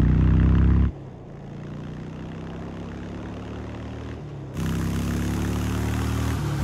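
Harley-Davidson Freewheeler trike's Milwaukee-Eight 114 V-twin engine running at steady revs. It drops to a much quieter level about a second in and comes back up loud about four and a half seconds in.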